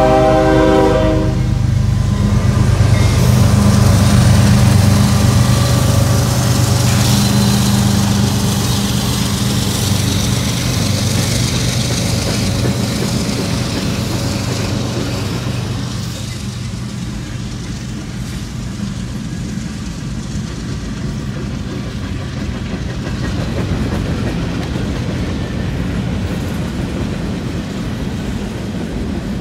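A CSX freight train's horn ends about a second in. Then its two GE diesel-electric locomotives, an ES40DC and an ET44AH, rumble past with a steady low engine note. After about 16 s the freight cars roll by with a steady rolling rail noise.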